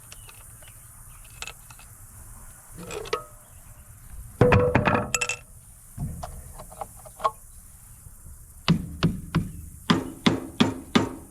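Metal hand tools and parts clinking and clattering on a small tractor engine as a part is worked off, with a loud clatter and brief ring about halfway through, then a quick run of about eight sharp taps near the end.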